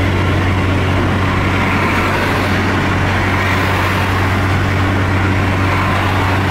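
Car driving at motorway speed, heard from inside the cabin: a steady low engine drone under loud road and wind noise, holding level without change.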